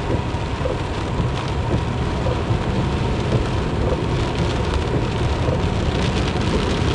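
Rain hitting the windshield and roof of a car driving on a wet highway, heard from inside the car, over steady tyre and road rumble. A faint steady high tone runs underneath.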